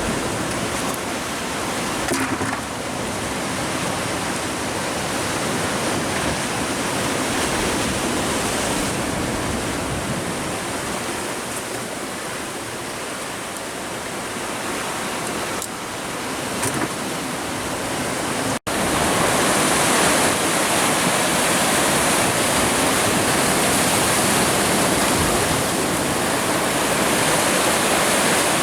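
Sea surf washing against shoreline rocks, a steady rushing noise. It cuts out for an instant about two-thirds of the way in, then comes back a little louder.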